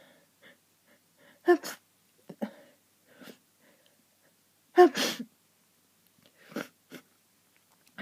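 A person sneezing repeatedly in a hayfever sneezing fit. Two full sneezes come about a second and a half in and about five seconds in, the second the loudest. Several shorter, quieter bursts fall between and after them.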